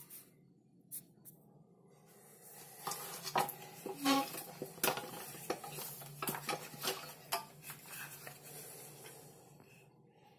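Sheet-metal case and detector housing of an RZBA-04-04M radiometer rattling and clinking as it is handled by hand: a few lone clicks at first, then a busy run of irregular metallic clicks and knocks from about three seconds in that dies away near the end.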